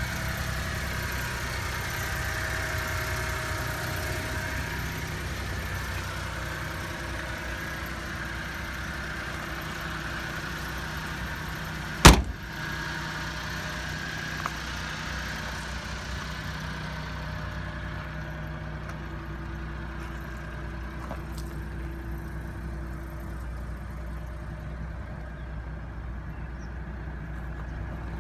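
Mitsubishi Minicab kei truck's engine idling steadily, with a door slammed shut once, loudly, about twelve seconds in.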